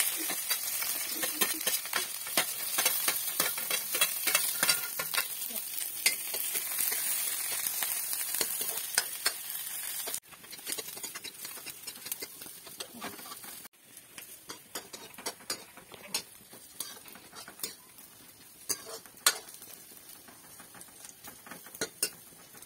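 Chopped onions and green chillies sizzling loudly as they go into hot oil in a karahi, then frying while a metal ladle stirs them, with short ticks of the ladle against the pan. The sizzle drops suddenly to a quieter level about ten seconds in and again near fourteen seconds.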